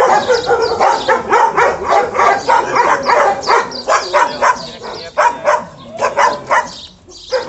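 Repeated dog barking in quick succession, about four barks a second, with a short lull near the end.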